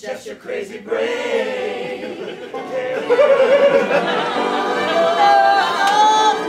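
A group of voices singing together in a stage musical number, coming in about a second in after a few sharp percussive hits.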